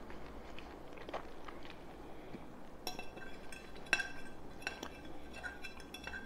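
A metal fork clinking and scraping against a ceramic pasta bowl as spaghetti is twirled, with a run of sharp, ringing clinks starting about three seconds in. Faint chewing comes before that.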